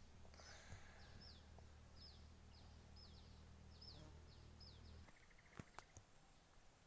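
Faint outdoor ambience: a bird repeats short, high, falling chirps about twice a second over a low hum that cuts off about five seconds in. A couple of light clicks come near the end.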